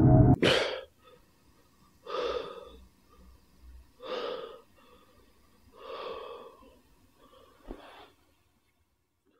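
A man waking with a start: a sharp gasp about half a second in, as the music cuts off, then heavy breaths about every two seconds.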